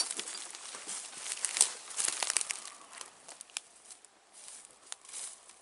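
Dry eucalyptus leaf and bark litter rustling and crackling under the hooves of a yoked bullock team and a man's boots, with many short sharp crackles that are densest in the first half and thin out later.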